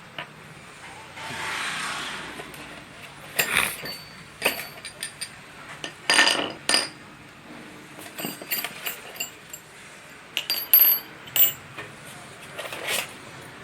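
Metal parts and tools of a magnetic core drill kit being handled: irregular clinks and knocks, some ringing briefly like metal on metal, with a short rustle about a second in.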